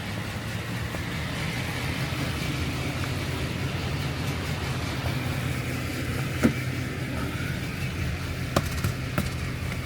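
Engine idling steadily, with a few sharp clicks in the second half.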